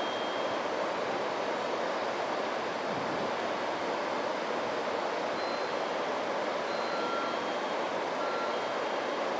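A JR Central 313-series electric train standing at the platform, its onboard equipment giving a steady, even whir.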